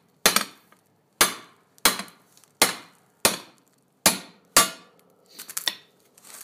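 Hammer striking a homemade steel cutting frame, about eight sharp ringing blows a little over half a second apart, driving its sharpened edge down through a ceramic fibre blanket to cut a forge-lining panel. A few lighter knocks follow near the end.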